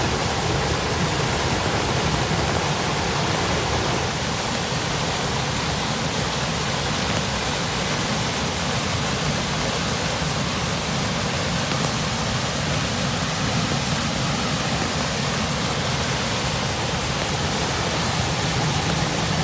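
Floodwater in a lake inlet stream, rushing in a steady, unbroken roar of water.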